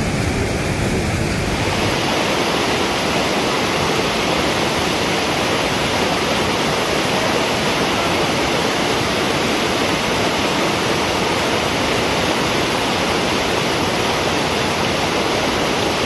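Waterfall in monsoon flow: a steady rush of water pouring over rock. About two seconds in, the rush turns brighter and hissier.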